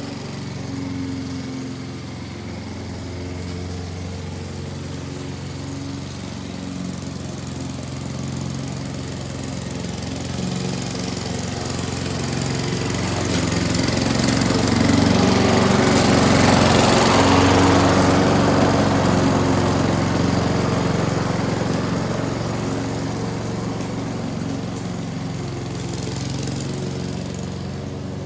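Walk-behind gas lawn mower running steadily while cutting grass. It grows louder toward the middle as it passes close, then fades as it moves away.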